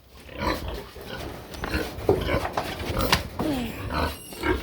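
Pigs grunting, with a few short calls that fall in pitch, mixed with scattered knocks.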